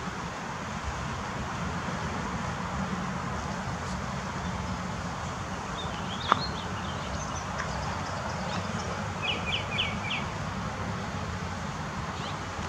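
Outdoor ambience: a steady low rush with small birds chirping, including a quick run of four or five repeated notes about nine to ten seconds in. A single sharp click sounds a little after six seconds.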